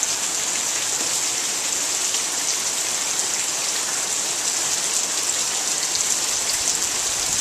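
Heavy rain pouring down, a steady even hiss with scattered drops ticking close by.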